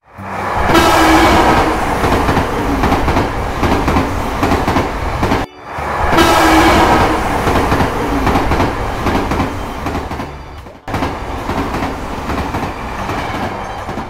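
Running train sound, played three times over with abrupt cuts about five and a half seconds apart, each time starting loud and easing off a little.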